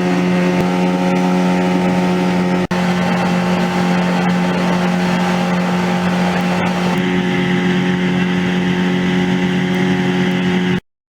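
Motorised river longboat's engine running steadily at an even pitch. There is a brief dropout about two and a half seconds in, and the sound cuts off suddenly near the end.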